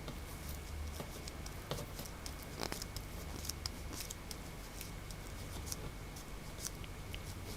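Faint scattered ticks and rubbing as a thumb peels and rubs excess contact adhesive off a LiPo battery pack, over a low steady hum.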